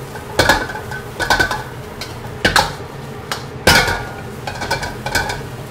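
Metal wok spatula scraping and clanking against a wok while stir-frying bean sprouts with shredded egg, one stroke about every second, each with a short metallic ring.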